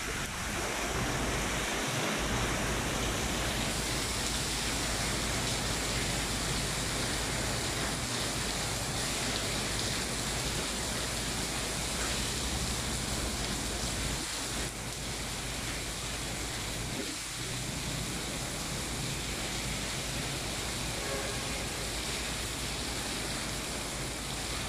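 Heavy typhoon rain driven by strong wind: a steady rush of rain noise with a low rumble of wind.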